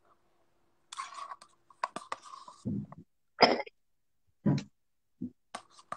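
Scattered small handling noises: a brief scraping rustle about a second in, then a few short taps and thumps and one short cough-like burst.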